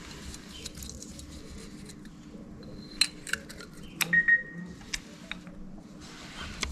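A few light metallic clicks and clinks as small metal parts or tools are handled, clustered in the middle and near the end, one leaving a brief ring, over a faint steady hum.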